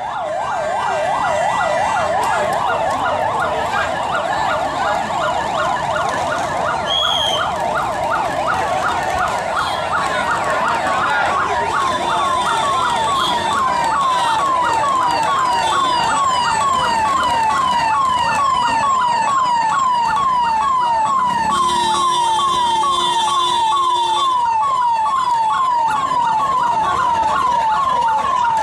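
Emergency vehicle siren in a fast yelp: a loud, continuous tone sweeping up and down in pitch several times a second, without a break.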